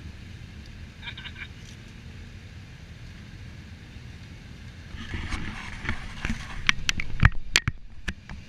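Motorcycles idling in a steady low rumble. From about five seconds in, a run of sharp knocks and rattles close to the microphone as the camera is jostled.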